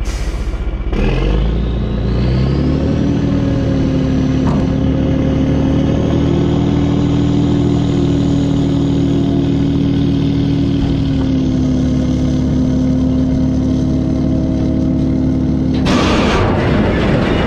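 Diesel engine of a Freightliner dump truck revving up about a second in and holding a steady raised speed, likely to drive the hydraulic hoist that tips the scrap-loaded bed, with a thin high whine rising alongside it. Near the end a louder rush of noise takes over.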